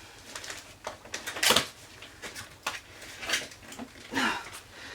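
Parcel packaging being torn and rustled open by hand: a string of short rips and crinkles, the loudest about one and a half seconds in.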